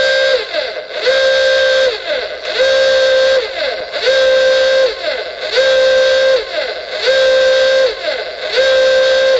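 Emergency alert warning tone: a loud, horn-like alarm blast repeated about every one and a half seconds, each blast holding one steady pitch and sliding down in pitch as it stops.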